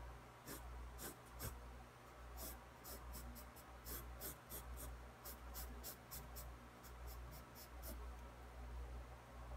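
Pencil scratching on sketchbook paper: many quick, short strokes in rapid runs, densest through the middle, as long lines of hair are sketched in.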